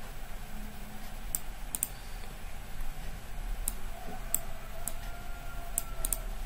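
Computer mouse clicking: about nine short, sharp clicks at uneven intervals, some in quick pairs, over a low steady hum.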